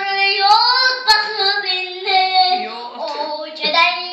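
A four-year-old girl singing alone, holding long steady notes with short upward slides between them.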